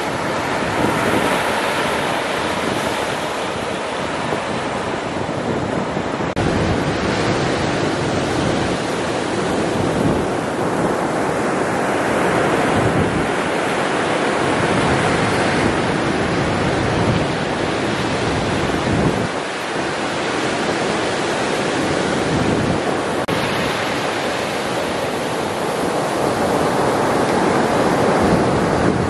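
Ocean surf breaking and washing up onto a sandy beach: a continuous rushing noise that swells and eases with each wave, shifting abruptly a few times.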